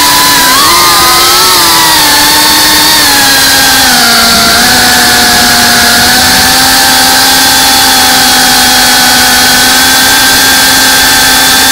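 FPV drone's brushless motors and propellers whining, over a steady hiss of rushing air. The pitch wavers up and down with the throttle for the first few seconds, dips about four seconds in, then holds steady.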